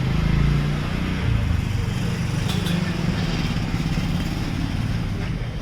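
A motor vehicle engine, most like a motorcycle's, running steadily with a low hum, easing off slightly near the end.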